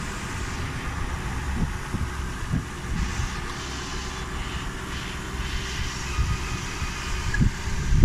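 2001 Lexus GS430 with its brake pedal held down: a low, uneven rumble with soft thumps and a steady faint hiss, the brake noise under investigation.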